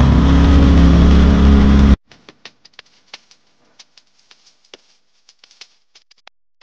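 Westinghouse portable generator's engine running steadily, cut off abruptly about two seconds in. Faint scattered clicks follow.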